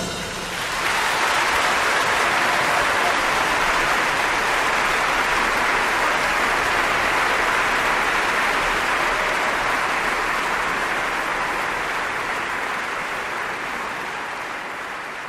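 A large theatre audience applauding, building up within the first second after the music stops and slowly dying away toward the end.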